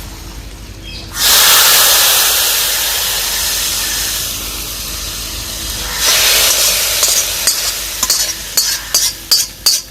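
A hot coconut-oil tempering of mustard seeds, onion, curry leaves and chillies is tipped into fish curry. It sizzles loudly from about a second in, fades, and surges again about six seconds in. Near the end come a quick run of scraping clinks as the pan is scraped out and the curry stirred.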